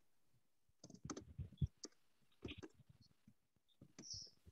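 Computer keyboard typing: faint, irregular runs of key clicks, about a second in, again past the middle, and near the end.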